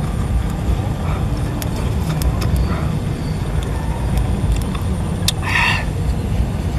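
Wind buffeting an outdoor microphone: a steady low rumble with a few faint clicks, and a short, brighter sound about five seconds in.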